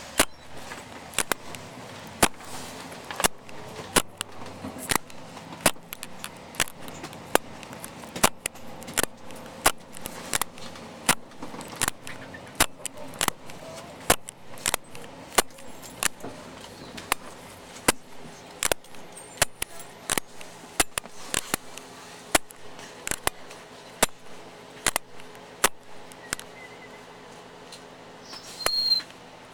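Sharp clicks or knocks repeating about once or twice a second, over a steady low hum.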